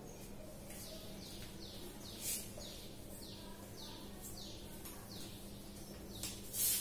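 Dry-erase marker squeaking on a whiteboard while words are written: a run of short, high squeaks, each falling in pitch, about two or three a second.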